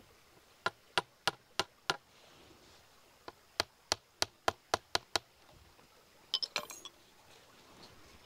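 Light, sharp metallic taps driving a small metal pin further through a rifle's wooden forestock: five taps at about three a second, a pause, then eight quicker taps, and a short rattle of clinks near the end.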